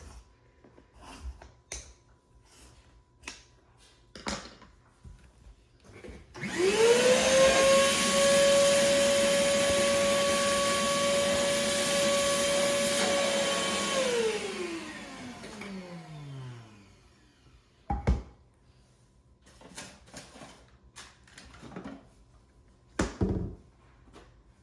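Vacuum cleaner switched on about six seconds in, its motor spinning up to a steady whine. It runs for about eight seconds, then is switched off and winds down over a few seconds. Scattered light clicks and knocks come before and after, with a sharper knock a little after it stops.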